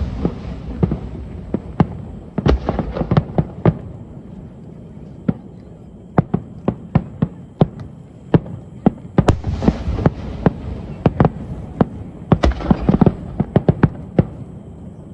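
Aerial fireworks bursting: a rapid, irregular series of sharp bangs and crackles, some followed by a short crackling hiss, over a low rumble of booms. The bangs come thickest about half a second in, about two to three seconds in, and again about nine to ten and twelve to fourteen seconds in.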